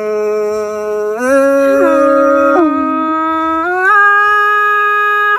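Thái (Tai Dam) call-and-response folk singing: a voice holds long drawn-out notes without words, sliding and stepping between pitches.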